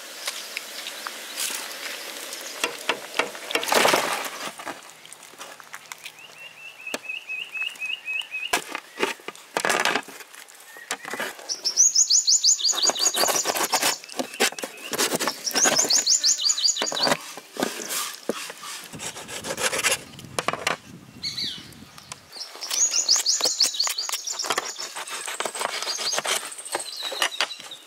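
A large curved knife cutting raw chicken wings on a metal tray: repeated sharp knocks of the blade striking the tray, and several runs of fast back-and-forth rasping as the blade saws and scrapes at the meat and joints.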